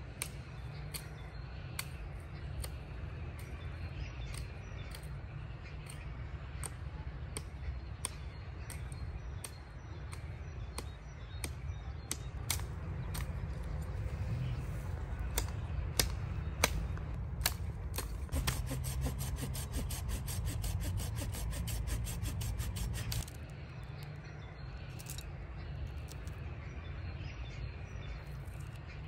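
Pine branches being chopped, cracked and broken off by hand: scattered sharp knocks and snaps, with a run of rapid, evenly spaced rasping strokes for several seconds past the middle, over a steady low rumble.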